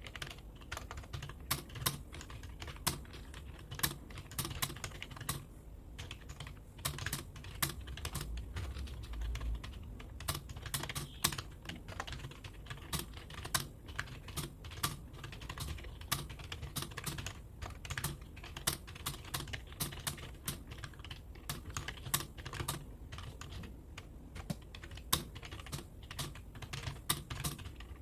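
Steady typing on a computer keyboard, keys clicking a few times a second without a break, during a timed typing-speed test run at about 36 words per minute.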